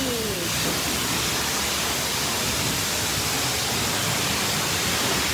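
High-pressure spray wand at a self-serve car wash, jetting water against the side of an SUV: a continuous, steady hiss of spray.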